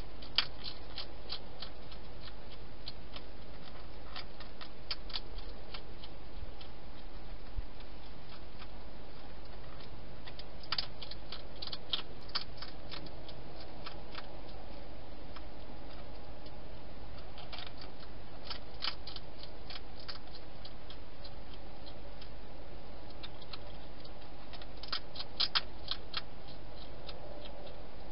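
Wild hedgehog eating, its chewing heard as bursts of rapid clicky crunches that come and go every few seconds over a steady hiss.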